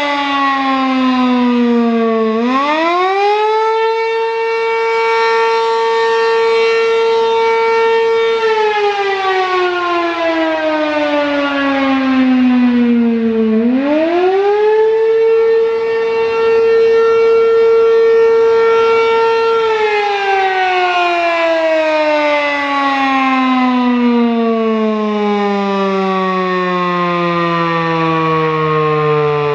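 ASC RM-127 three-phase single-tone Penetrator siren sounding the attack signal, very loud. Its pitch swoops up quickly, holds steady for about six seconds, then slides slowly down, and this happens twice. About two-thirds of the way in a long, slow fall begins, sinking lower than the earlier dips.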